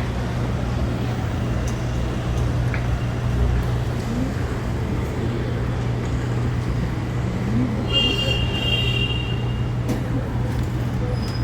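Steady background rumble of road traffic under a constant low hum. A brief high-pitched tone sounds about eight seconds in.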